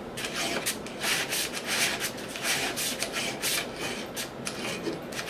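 Flat hand file rasping across a stepper motor's metal shaft clamped in a vise, in short repeated strokes about two a second, each stroke going one way across the shaft and then lifted. The file is grinding a flat onto the shaft for a pulley's set screw to bite into.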